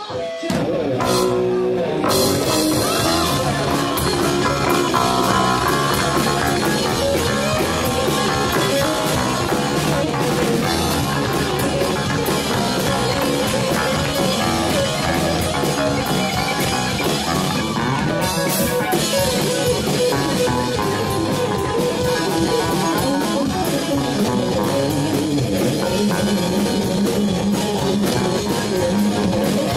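Live rock band playing loudly, with electric bass, electric guitar and drum kit. The sound thins out briefly at the very start, and the full band comes in about two seconds in.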